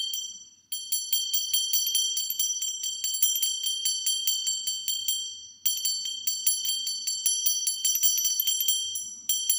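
Temple bell rung rapidly and steadily: bright, high clangs several times a second, with a brief break about halfway through.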